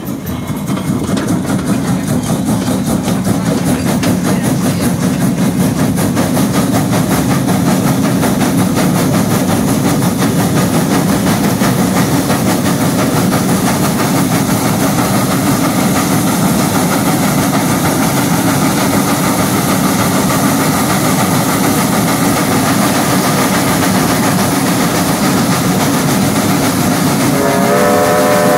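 Baldwin 2-10-0 steam locomotive No. 90 working hard as it picks up speed: rapid exhaust beats from the stack, growing louder over the first few seconds and then holding steady. Near the end its steam whistle starts blowing a chord of several tones.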